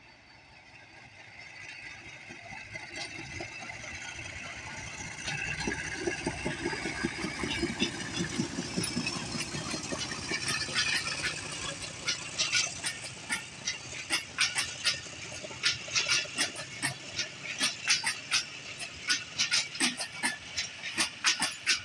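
Hitachi diesel locomotive approaching and passing under power, its engine throbbing and growing louder over the first several seconds. The coaches then roll past with a steady rhythm of wheels clacking over rail joints.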